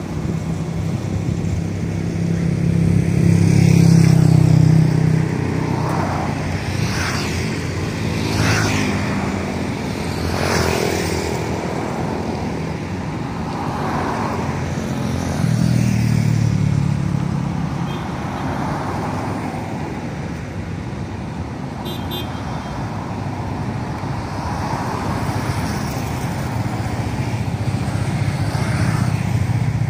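Road traffic noise: a continuous low engine and tyre rumble with cars and motorcycles driving past, several swishing by in quick succession between about 6 and 11 seconds in.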